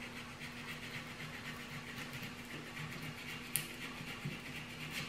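Rolled-up 60-grit sandpaper grinding a curve into a wooden walking stick in quick, rhythmic back-and-forth strokes, with one sharp click about three and a half seconds in.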